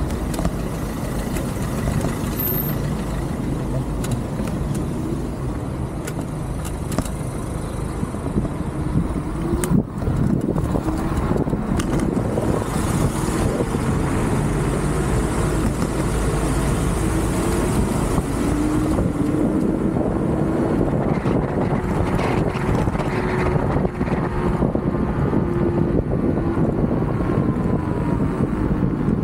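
Onvo RX7 electric scooter riding, its motor whine falling at the start, rising again and holding steady late on, over a steady low rush of wind and road noise. One sharp knock about ten seconds in.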